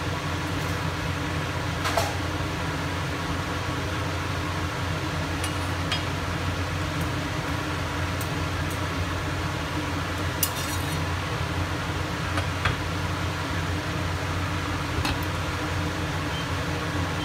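Steady low hum under a pot on the hob, with a few light clinks as a glass lid is set on the stainless steel pot.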